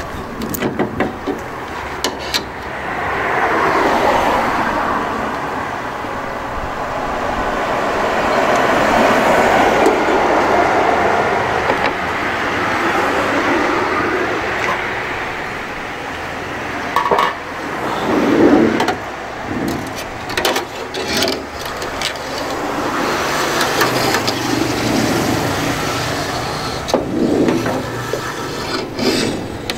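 Long rasping, rubbing strokes of work on a van's glued-in side window: the adhesive being cut and scraped loose, with scattered knocks and clicks in the second half.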